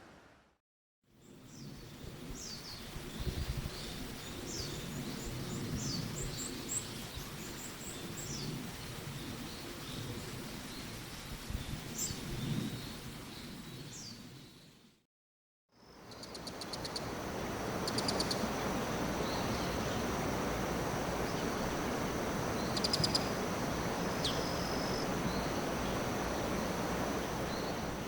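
Wild forest songbirds calling in two separate recordings. First come many short, high calls that slide downward. Then, after a brief silent gap, rapid high trills sound over a louder steady hiss.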